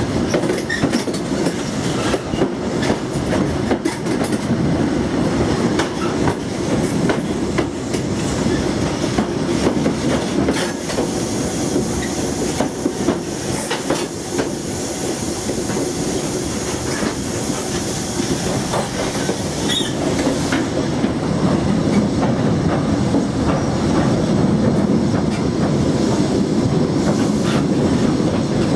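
InterCity 125 (HST) train running over the rails, heard from the coach: a steady rumble of wheels on track with irregular sharp clicks from the rail joints. A brighter hiss joins in through the middle.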